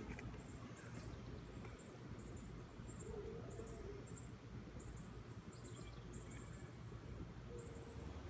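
Faint, very high-pitched chirps in short repeated clusters, a call from a small animal such as an insect or a bird, over a steady low outdoor rumble.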